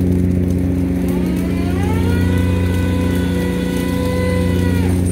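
A fishing vessel's engine running with a steady drone. About a second in, a machine whine rises in pitch, holds steady, and then stops just before the end.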